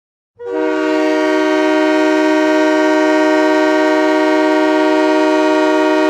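Tucson Roadrunners' hockey goal horn sounding one long steady blast, a chord of several held tones that starts about half a second in, heard with added reverb.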